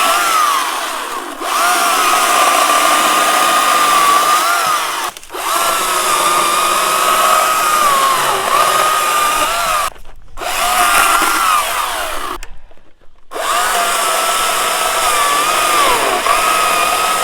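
GreenWorks commercial battery chainsaw running with a high electric whine while cutting a fallen branch; the whine sags in pitch under load and cuts out briefly four times between cuts.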